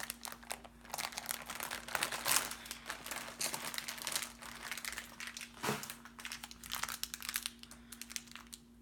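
Crinkling of a hard candy's wrapper as it is worked open by hand, an irregular run of crackles.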